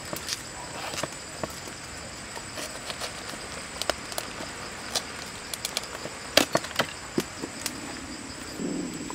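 Large knife cutting into a raw head of cabbage, with crisp crunches and snaps of the leaves as the core is cut out, several sharper cracks coming about six to seven seconds in. Insects drone steadily and high in the background.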